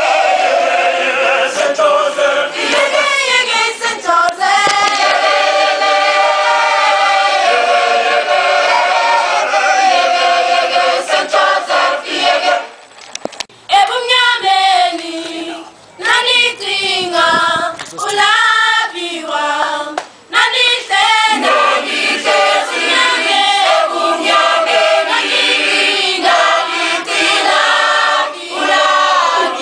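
Children's choir singing together in many voices, unaccompanied, with a few short breaks between phrases about halfway through.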